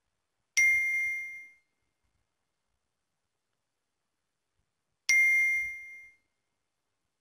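Two identical electronic notification dings, about four and a half seconds apart, each a bright two-pitch chime that rings out over about a second.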